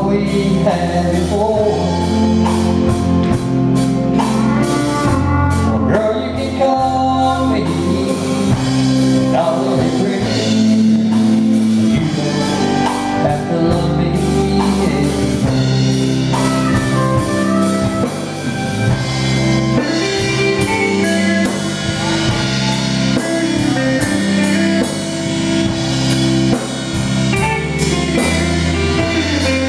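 Country band playing live: electric guitars and a drum kit with cymbals, and a singing voice over the top.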